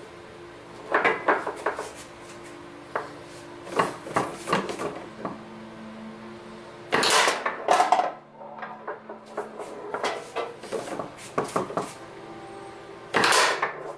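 Foosball play on a Tornado table: the ball tapped, pinned and struck by the plastic men, with the rods clacking, in scattered bursts of sharp knocks. The loudest bursts come about seven seconds in and again near the end, over a faint steady hum.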